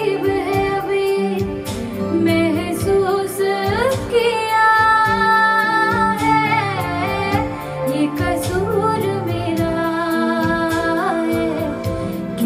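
A woman singing a Hindi song in long held notes that bend in pitch, over a recorded backing track with a steady beat.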